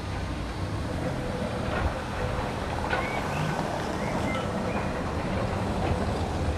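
Articulated tram rolling slowly over the curved tracks of a depot yard, a steady low rumble with a few brief high squeaks about halfway through.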